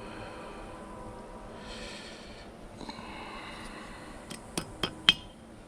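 Rustling and handling noise, then three quick sharp metallic clinks of steel hand tools near the end, the last the loudest.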